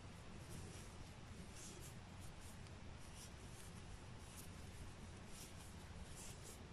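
Faint scratching of yarn drawn over and through a metal crochet hook as double crochet stitches are worked. The short scratches come irregularly over a low steady hum.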